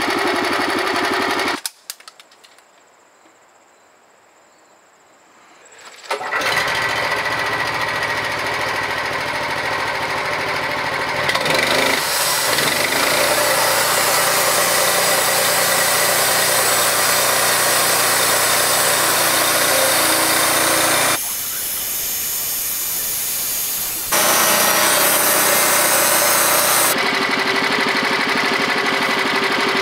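Portable Norwood bandsaw mill running, its gasoline engine at speed and the band blade sawing lengthwise through a cedar cant. A few seconds of near silence come about two seconds in, and the sawing noise then shifts abruptly several times.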